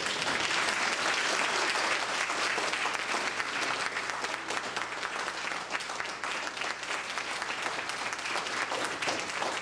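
Congregation applauding, the clapping starting suddenly and staying strong.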